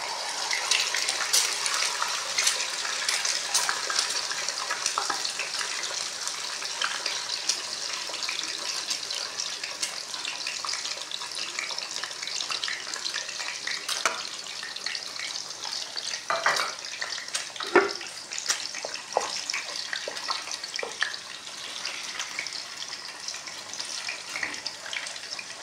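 Eggs frying in oil in a pan: a steady crackling sizzle, loudest just after they go in and settling gradually. A couple of louder knocks come about two-thirds of the way through.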